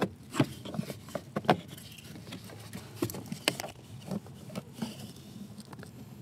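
Irregular clicks and knocks of a BMW E36 clutch pedal being handled and worked back onto its pivot pin in the pedal bracket, a dozen or so light taps, the sharpest about a second and a half in and again about three and a half seconds in.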